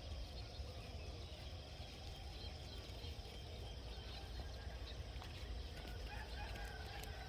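Rural outdoor ambience: a steady low rumble with faint scattered bird calls, a few clearer short calls near the end.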